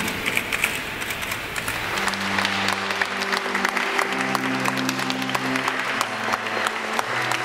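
Congregation applauding, over music whose low held chords come in about two seconds in.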